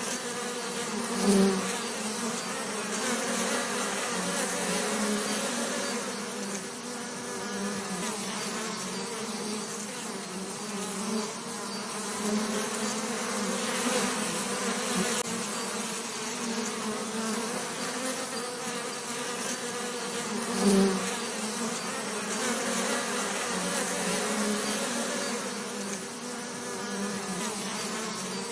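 Bees buzzing in a steady hum, swelling briefly louder twice: once about a second and a half in and again about twenty-one seconds in, as if a bee passes close.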